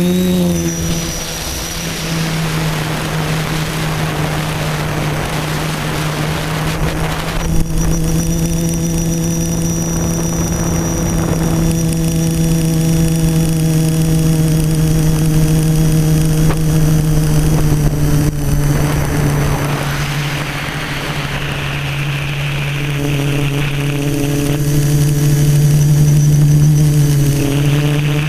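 Electric motor and propellers of an FPV quadcopter running in flight, recorded by its onboard camera: a steady hum with a little pitch movement, mixed with wind rushing over the microphone. The hum grows louder about three-quarters of the way through.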